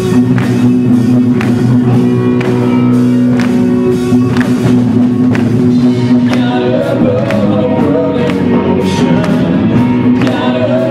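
Live worship band playing a rock-style song: electric guitars and drums under singers, with a steady drum beat.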